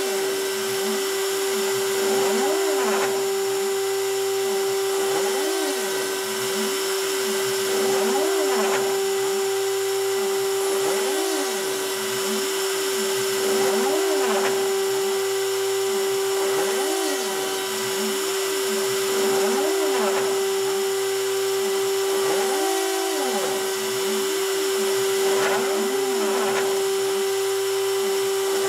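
Hobby CNC machine (OpenBuilds C-Beam) engraving cardboard: the rotary-tool spindle runs with a steady whine, while the stepper motors whine up and down in pitch with each short back-and-forth move, roughly once a second.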